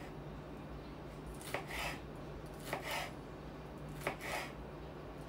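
A kitchen knife slicing carrot into julienne strips on a cutting board: three slow cuts, each a sharp tap of the blade followed by a short slicing swish.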